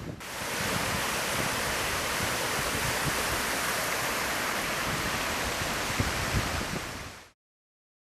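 Steady rushing of a river in spate. It fades out to silence about seven seconds in.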